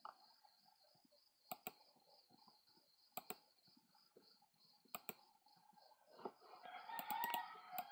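Computer mouse clicks: three quick press-and-release pairs about a second and a half apart, then a short cluster of clicks near the end, over a faint steady high-pitched whine. A soft noise swells up near the end.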